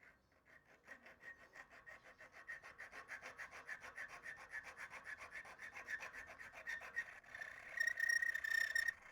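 Rapid, even scraping or rubbing strokes on a small workpiece, about five a second, with a faint squeaky ring. The strokes turn into a louder, more continuous rub in the last two seconds.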